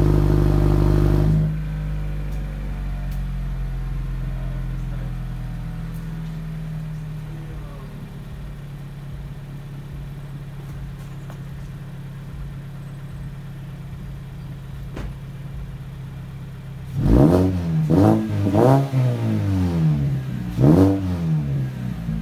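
Mazda 3 hatchback's four-cylinder engine idling through an aftermarket axle-back exhaust after a cold start. It runs loudly at first, then drops suddenly to a quieter idle about a second in. Near the end it is revved four times in quick succession, each rev rising and falling in pitch.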